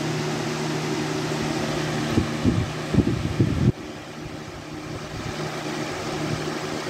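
Lasko 20-inch box fan running on medium with a steady motor hum and rushing air. A few low thumps come between about two and three and a half seconds in. Then the air noise drops suddenly and the fan runs quieter.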